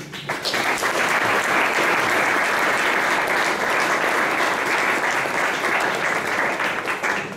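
Audience applauding in a lecture room: dense, steady hand-clapping that starts suddenly and stops abruptly after about seven seconds.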